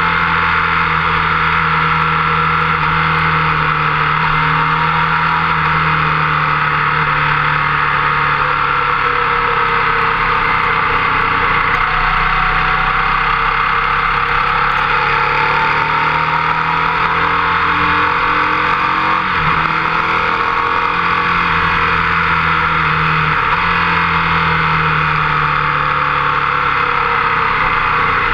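Motorcycle engine running at track speed, its note rising and falling with the throttle and stepping down twice in the second half, under a heavy rush of wind on the fork-mounted microphone.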